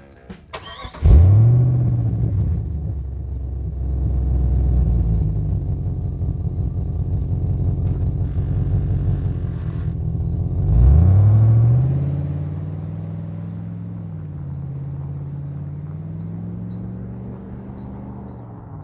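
Jeep Grand Cherokee WJ's 4.7-litre V8 exhaust: the engine starts and catches with a rising flare about a second in, then runs with a deep, steady rumble. It is revved once about eleven seconds in and settles back to a steady idle.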